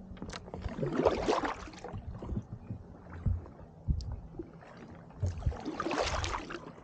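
Kayak paddle strokes splashing through icy water with floating brash ice: two swells of splashing, each about a second long, one early and one near the end, with scattered low knocks in between.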